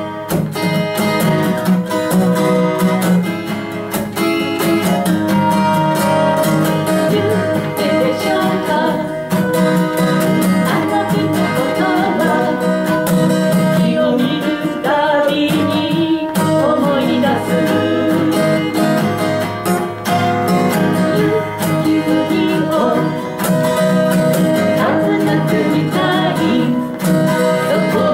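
Two steel-string acoustic guitars strumming chords together in a folk song, with a voice singing over them.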